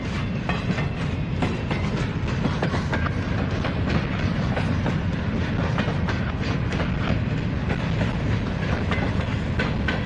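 Freight train of covered hopper cars rolling past, a steady low rumble of steel wheels on rail with frequent irregular clicks and clacks from the wheels.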